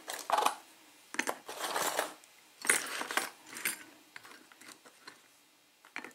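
Metal lock picks clinking and rattling against one another as they are handled, in about four short clattering bursts, then a few fainter ticks in the second half.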